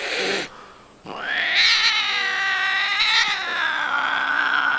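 A cat hisses briefly, then about a second in lets out a long, drawn-out yowl that wavers in pitch and keeps going. This is the sound of an agitated, defensive cat.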